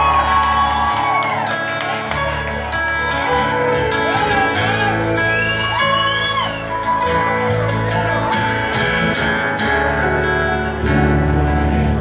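Live rock band playing amplified music: electric guitars, bass, keyboard and drums, with gliding melody lines over a steady low end that grows fuller near the end.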